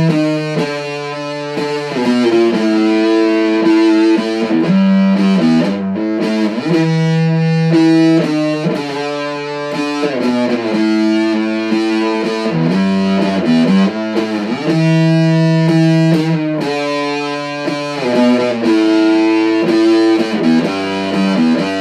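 Music: a song passage of held, distorted notes with rich overtones, changing pitch every second or so.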